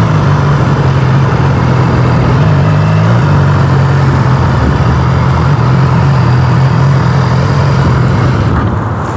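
BMW S1000 XR's inline-four engine running steadily while the bike is ridden, its revs dipping and picking up again at the start and shifting once about three seconds in.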